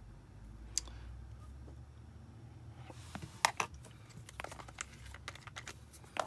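Light clicks and taps of small stainless steel vape atomizer parts and tweezers being set down and picked up on a cutting mat. There is one sharp click about a second in, then a busy run of them through the second half, the loudest near the middle.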